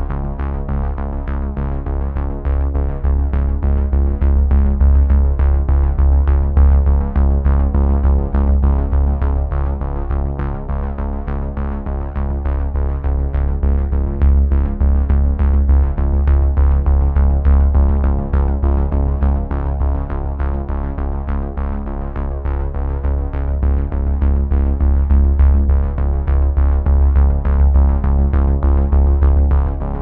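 Electronic background music: held synthesizer chords over a heavy, steady bass and a regular beat.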